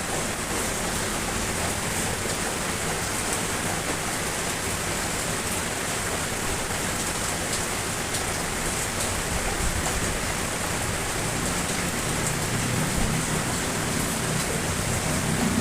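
Steady rain falling, an even hiss with the tap of individual drops. A low rumble starts to build in the last second.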